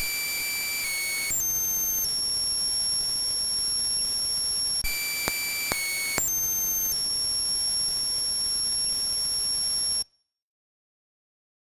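A mostly harmonic electronic sound, high steady tones stepping in pitch over a hiss, played twice. The first pass is the residual of a transient-extraction algorithm with its pops removed. The second pass is the original, rebuilt by summing the layers, with three sharp pops near its start. It cuts off suddenly about ten seconds in.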